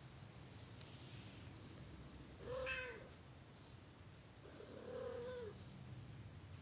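20-day-old kitten mewing twice: a short meow about two and a half seconds in, then a fainter, longer one about two seconds later.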